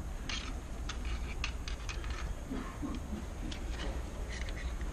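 Light, scattered clicks and rustles of plastic sensor housings and their cables being handled, over a low steady hum.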